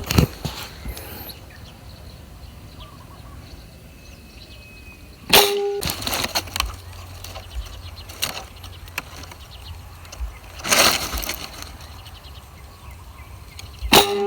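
Two shots from a PCP air rifle, about nine seconds apart, each a sharp crack followed by a brief metallic ring. A short rustling burst falls between them.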